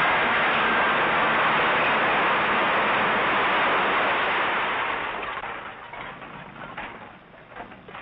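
Refuse and rubble pouring down a dump heap: a loud rushing rattle that fades away after about five seconds, leaving scattered crackles.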